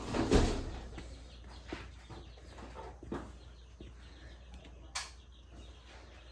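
Kitchen handling noises as cake batter is finished in the baking pan: a heavier thump about a third of a second in, then a few scattered light knocks and clicks of the pan and utensils.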